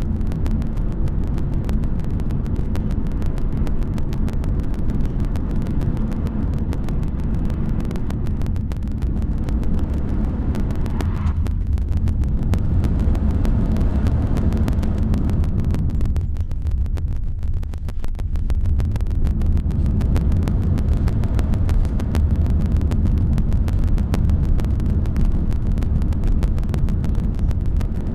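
Car road noise heard from inside the cabin while driving: a steady low rumble of engine and tyres, easing briefly a little past the middle.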